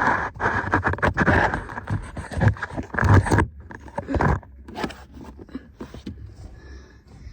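Loud rustling and scraping for about four seconds, then scattered light clicks and knocks.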